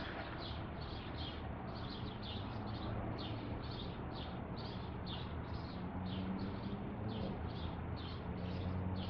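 Small high chirps repeating evenly at about three a second, over a steady low hum that grows louder about six seconds in.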